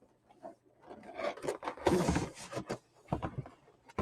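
Cardboard packaging scraping and rubbing as the contents are slid out of the box, in a run of strokes starting about a second in, with a shorter scrape near the end.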